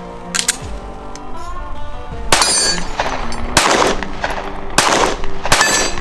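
Four pistol shots, about a second apart, starting a little over two seconds in, each with a short echoing tail, over background music.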